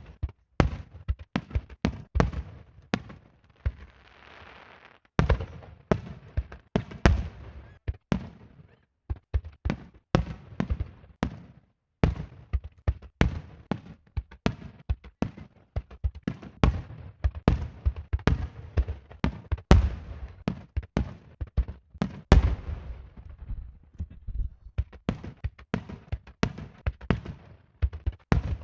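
Aerial fireworks shells bursting in rapid volleys, with many sharp bangs, often several a second. About four seconds in there is a short lull filled only by a faint hiss.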